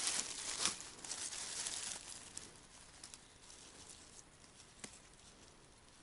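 Rustling and crackling of dry pine needles and forest-floor litter as hands and a folding knife work at the ground, louder for the first two seconds, then quieter with a few soft ticks.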